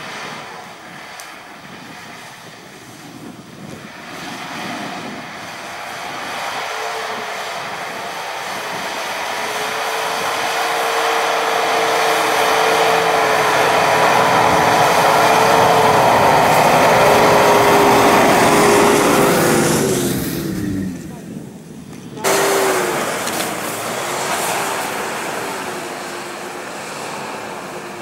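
Nissan Patrol 4x4 engine running as the SUV drives through snow towards and past, growing steadily louder, then falling in pitch as it goes by about twenty seconds in. The sound drops away briefly and comes back abruptly as it drives off.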